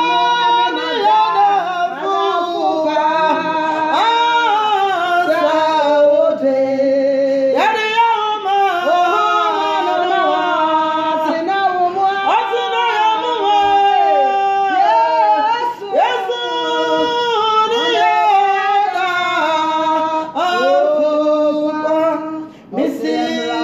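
Women singing a worship song, holding notes that slide up and down in pitch.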